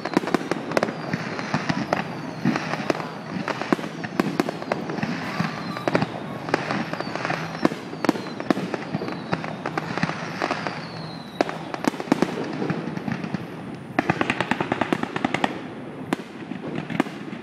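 Fireworks display: aerial shells bursting one after another with sharp bangs and crackle. Several whistles fall in pitch over roughly the first ten seconds, and about fourteen seconds in comes a dense run of rapid crackling pops.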